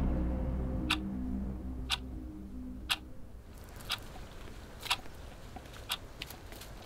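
Wristwatch ticking, one sharp tick a second. A low hum fades away under the ticks over the first few seconds.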